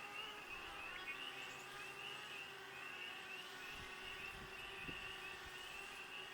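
Faint outdoor ambience with a high-pitched chirping that repeats several times a second in short runs.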